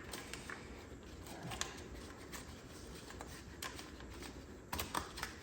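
Engine wiring harness being routed and tucked by hand: scattered light clicks and rustling, with a few sharper clicks near the end.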